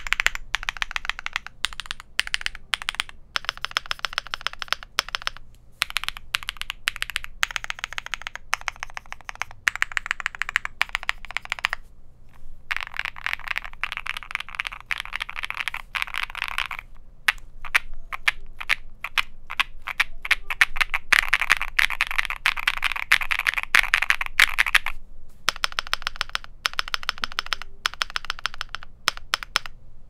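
Fast typing on a modded Monsgeek M1W mechanical keyboard. It has lubed Gateron Baby Raccoon linear switches, a polycarbonate plate, case, plate and PE foam, a tape mod, and Keychron cherry-profile keycaps. Keystrokes come in dense runs broken by a few short pauses and stop just before the end.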